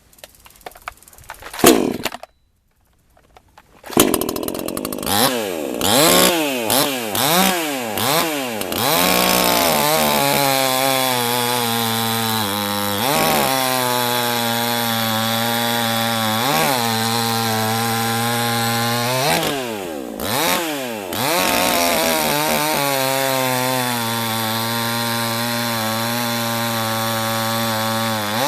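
PROYAMA 62cc two-stroke chainsaw engine, its high-speed mixture screw turned in half a turn. After a few knocks, it starts up and revs in several quick throttle blips, then runs held at high revs, briefly dipping and recovering a few times.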